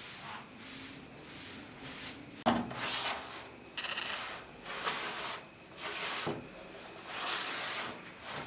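Short straw hand broom swishing and rubbing as it sweeps a window sill, in a series of uneven strokes, with a sharp knock about two and a half seconds in.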